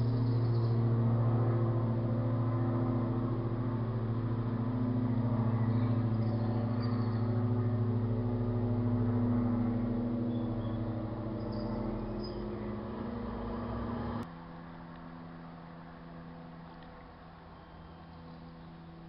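Small propeller aeroplane's piston engine droning steadily as it flies, slowly fading. About fourteen seconds in, the sound drops abruptly to a quieter, thinner drone.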